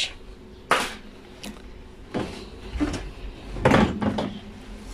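Dishwasher wire racks being handled and slid: a sharp clack about a second in, a softer one, then a longer, louder rattle near the end.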